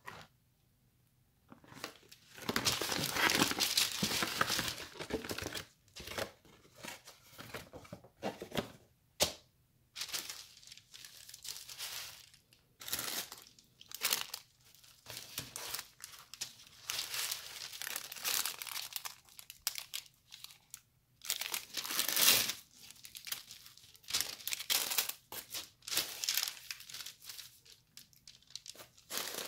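Paper fast-food packaging being handled: a small paper food bag and a paper liner sheet crinkle and rustle in irregular bursts, with tearing as the bag is opened, and a sharp click about nine seconds in.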